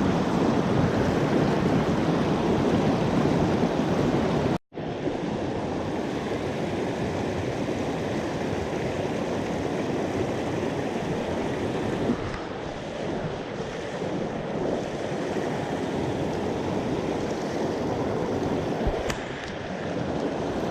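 Mountain stream water rushing, a steady noise. It cuts out for an instant about four and a half seconds in, then goes on a little quieter.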